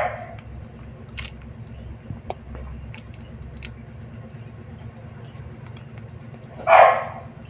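Hands handling a bike helmet and pressing its detachable plastic brim into place: scattered small clicks and crinkles of plastic and foam, with one louder short rustle near the end.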